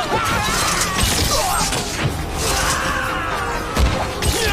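Battle din of many soldiers shouting and yelling, with crashes and thuds of fighting, the loudest crash just under four seconds in, over faint background music.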